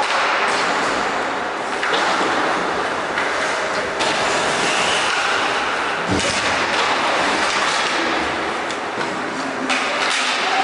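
Ice hockey play in an indoor rink: skates scraping the ice over a steady, echoing arena noise, with a few sharp knocks from sticks, puck or boards, the clearest about six seconds in.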